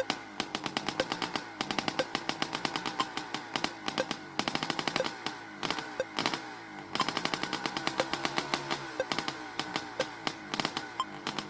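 A fast, continuous rattle of sharp pops with a short tick about once a second.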